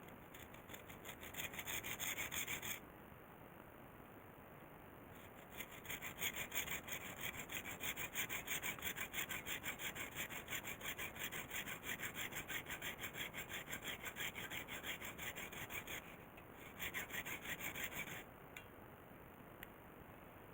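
Hand sawing with a hacksaw: quick, even back-and-forth strokes about four a second, in three spells with short pauses between them.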